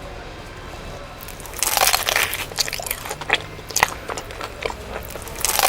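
Close, loud crunching and chewing of crispy broasted fried chicken: a quiet start, then from about a second and a half in a quick run of sharp crunchy bites.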